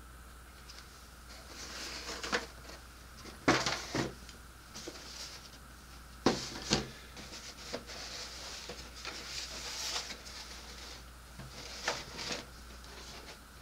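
Cardboard model kit boxes being moved about and set down on a table: rustling and sliding, with a few sharp knocks as the boxes are put down, the loudest about three and a half, four and six and a half seconds in.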